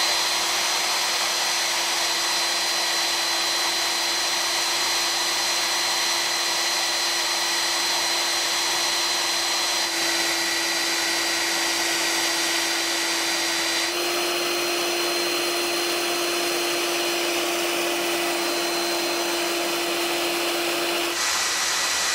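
Belt sander running at full speed with a steady whine while a wooden band saw wheel spins against its moving belt, sanding a slight crown onto the wheel's rim. The tone of the whine shifts abruptly a few times.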